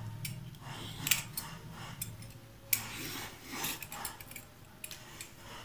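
Vegetable peeler scraping the skin off a ripe papaya in a series of short, irregular strokes.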